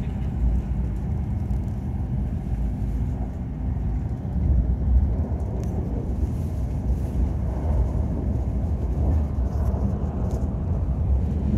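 Hokkaido Shinkansen bullet train running at speed, heard from inside the passenger cabin: a steady low rumble with a lighter hiss above it.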